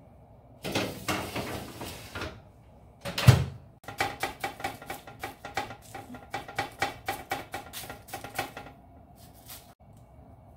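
Baking tray handled at a toaster oven: a scraping rattle, then one sharp clank as the metal tray is knocked or set down, followed by a run of quick light clicks, about six a second, for some five seconds.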